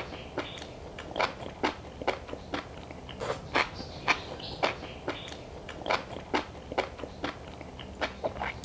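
Close-miked eating: a person biting and chewing food, with irregular crisp crunches and wet mouth clicks about two to three times a second.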